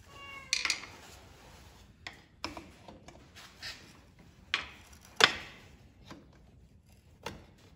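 Hand tools clicking, scraping and knocking on metal while a sheet metal screw is worked into the old rockshaft seal to pry it out. There is a short squeak right at the start and the sharpest knock comes about five seconds in.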